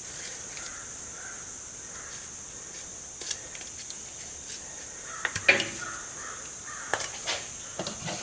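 A steady high insect drone with a bird, likely a crow, giving a few harsh caws, the clearest a little past halfway; a few light clicks and taps of handling are heard too.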